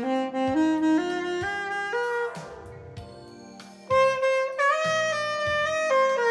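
Instrumental music: a lead melody of held notes moving step by step, dropping quiet for about a second and a half midway, then coming back in loudly with long sustained notes.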